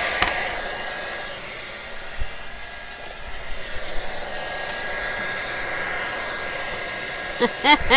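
Craft heat gun blowing steadily to dry paint, a steady hiss with a faint whine that eases a little for a couple of seconds and then comes back.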